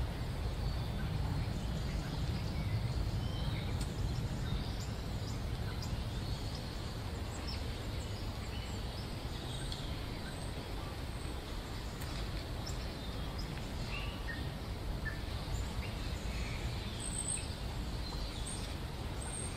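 Steady low outdoor background rumble with small birds chirping faintly over it: scattered short high chirps, and a run of repeated very high chirps near the end.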